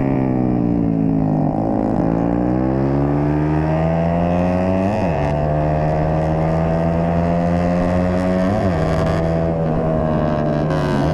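Yamaha sport bike's engine heard from on board: its pitch falls as it slows at the start, then climbs steadily under hard acceleration, broken by two quick upshifts about five and eight and a half seconds in, each a short dip before it climbs again.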